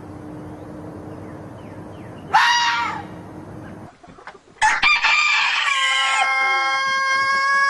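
A short pitched call about two seconds in, then a rooster crowing with a long, drawn-out, steady held note.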